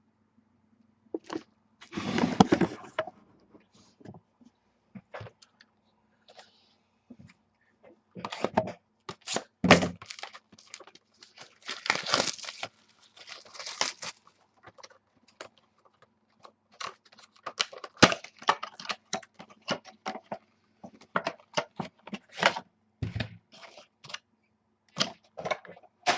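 Wrapping and cardboard of a box of Spectra football trading cards being torn open and handled: irregular bursts of tearing, crackling and crinkling.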